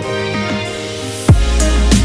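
Electronic background music: steady pitched notes, then a little over a second in a heavy deep bass line and kick-drum hits come in and it gets louder.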